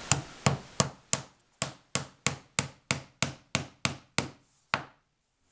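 A hammer drives small barbed panel nails, about an inch long, into a wall panel over wood framing: about fourteen sharp strikes at a steady rate of roughly three a second, stopping just before the end.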